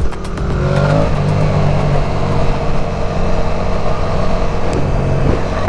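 Motorcycle engine running while riding, rising in pitch briefly about a second in as it pulls, over a constant rush of wind on the microphone.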